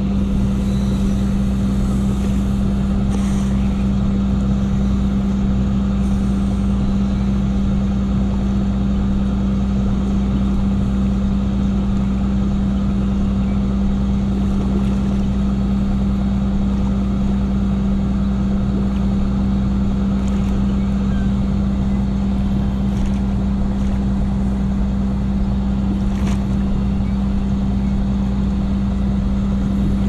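Engine idling steadily, a constant low hum.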